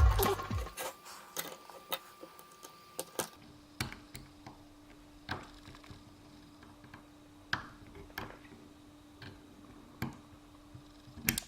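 Small metal tools clicking and scraping on a padlock as a C-clip is worked off its core: sparse, irregular light ticks. A faint steady hum sets in about three seconds in.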